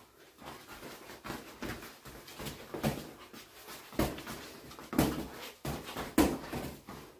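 Boxing gloves smacking against focus mitts during pad work: a run of sharp smacks at an uneven pace, the loudest about four, five and six seconds in.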